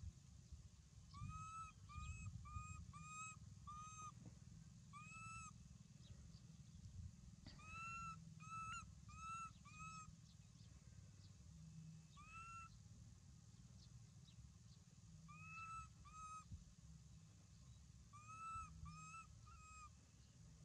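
Faint animal calls: short, arched, pitched notes repeated in runs of two to five, about two a second, with pauses between the runs, over a low rumble.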